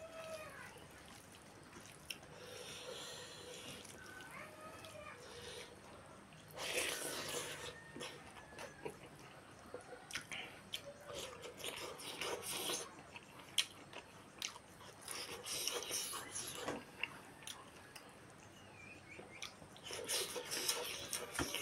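A bare hand kneading and mixing rice with broth on a banana leaf: wet squishing and sticky clicks, in several bursts.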